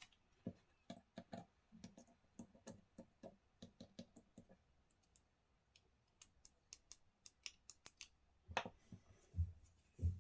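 Small hand tools and parts being handled on a bench: a run of light clicks and ticks, with a few heavier knocks near the end.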